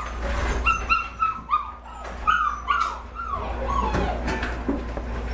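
Young Shepadoodle puppies whimpering and squealing: a run of short high-pitched cries, about three a second, then a few longer falling whines.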